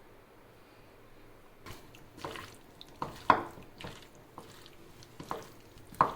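Food being handled in a bowl: about six short, wet clicks and squishes in an uneven run, the loudest a little past three seconds in.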